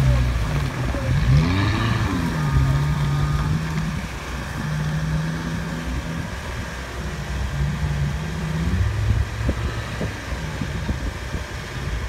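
An off-road 4x4's engine revving up and down, then running at steadier engine speeds with short dips. It grows quieter in the last few seconds.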